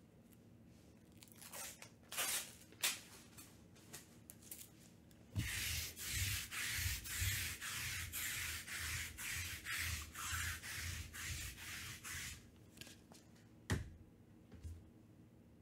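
Sticky lint roller rolled back and forth over a mat, a rasping scrape in quick repeated strokes for about seven seconds. A few handling clicks come before it, and there is a single sharp click near the end.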